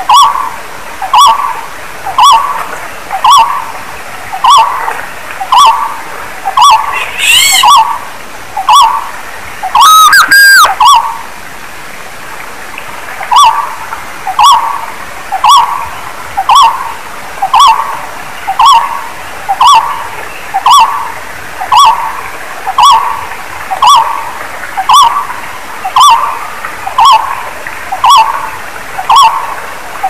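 Barbet calling: a long, monotonous series of short repeated notes, about three every two seconds. About ten seconds in, a loud rising whistle-like call breaks the series, which pauses for two seconds or so and then resumes.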